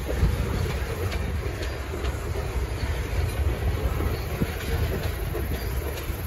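Coal cars of a long freight train rolling past: a steady low rumble of steel wheels on the rails, with now and then a faint click.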